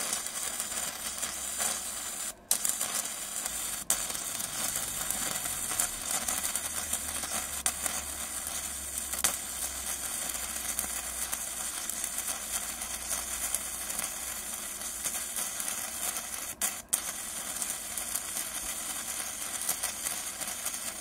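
Gasless flux-core MIG welding arc from a HITBOX HBM200 set to 160 amps, laying a bead on 3–4 mm steel: a continuous hiss with fine crackle as the arc runs smoothly. It drops out for an instant twice, about two and a half seconds in and again about three-quarters of the way through.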